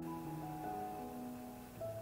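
Background music: a melody of held notes over a steady low bass line.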